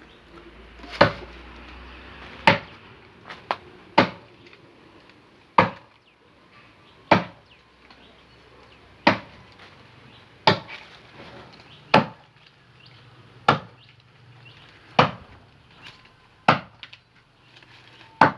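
Tree trunk being chopped by hand with a bladed tool: about a dozen sharp, evenly paced blows into the wood, roughly one every second and a half.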